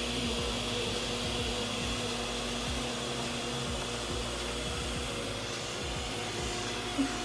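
Ecovacs Deebot N79W robot vacuum running: a steady whir with a faint low hum.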